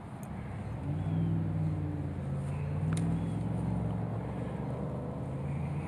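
An engine running in a steady low drone that swells in about a second in and holds, with a faint click partway through.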